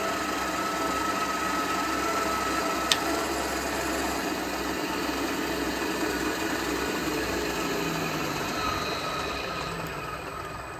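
Machine spindle turning a freshly hand-sharpened 3/8-inch drill bit under power feed, cutting through a metal block. A thin steady tone from the cut stops about three seconds in, just after a single click, and the spindle runs on, getting quieter near the end. The power feed not kicking off is the sign that the resharpened bit is cutting freely.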